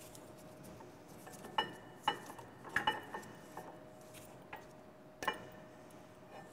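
Brake pads being worked out of a Brembo brake caliper: about five light metallic clinks, each with a short ring, as the pads' metal backing plates knock against the caliper.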